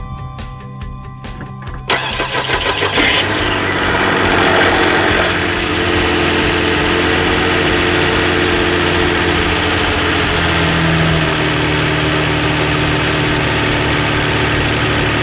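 The 2007 Hyundai Entourage's 3.8-litre V6 cranks on the starter about two seconds in, catches and briefly revs up, then settles into a steady idle. It keeps running with a new mass airflow sensor fitted, the sensor whose fault had made it start and then cut out.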